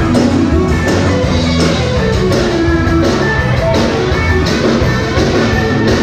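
Rock music with electric guitar and a drum kit keeping a steady beat.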